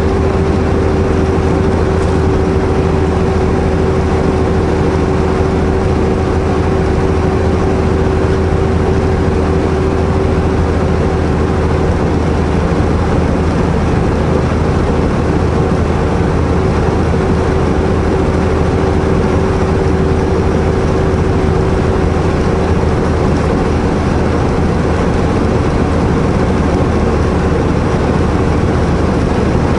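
Semi truck's diesel engine and road noise heard from inside the cab while driving: a steady, unchanging drone with a constant hum.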